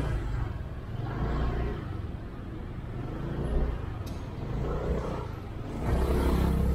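Honda Click 125i single-cylinder scooter riding in traffic: a steady low engine and road rumble that swells near the start and again near the end, with one brief click about four seconds in.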